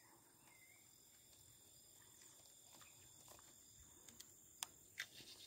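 Near silence: faint outdoor ambience with the steady high drone of crickets, and a few faint clicks in the last second and a half.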